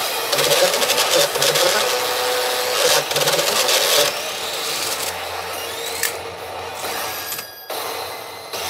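P北斗の拳9闘神 pachinko machine playing a loud rushing, crackling clash effect through its speakers, dropping out briefly near the end before picking up again.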